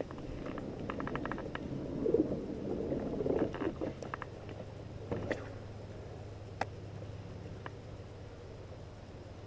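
Handling noise on a kayak: water sloshing and gurgling against the hull, loudest between about two and four seconds in, with a quick run of small clicks about a second in and a few single clicks and knocks later.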